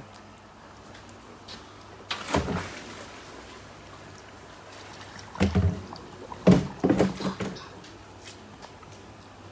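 Water splashing and sloshing in a plastic tub holding koi, in short bursts: one about two seconds in, then several close together from about five and a half to seven and a half seconds in.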